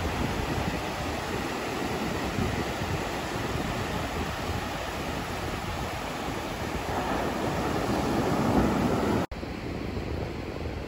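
Ocean surf breaking and washing up over wet sand, with wind buffeting the microphone. About nine seconds in the sound cuts out for an instant and comes back quieter and duller.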